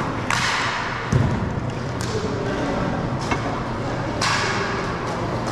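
Floor hockey play: sharp clacks of sticks striking the ball or floor, with a heavy thud about a second in.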